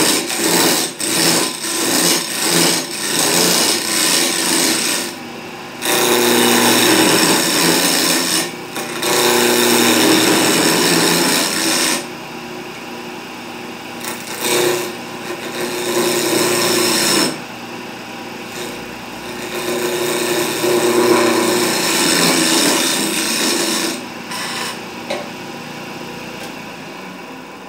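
Wood lathe spinning a wooden spindle blank while a hand-held turning tool cuts it round: rapid repeated strokes at first, then long stretches of steady scraping cutting noise with short pauses. The noise fades away near the end.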